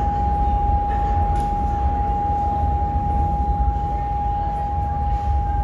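A single steady high tone held without a break over the low rumble of a subway station.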